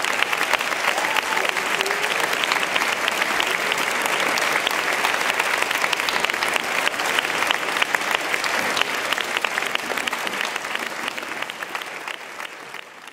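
A large audience clapping steadily, the applause fading out near the end.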